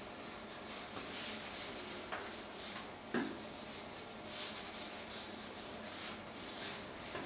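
Whiteboard duster wiping marker off a whiteboard in repeated rubbing strokes, with two light knocks against the board near the middle.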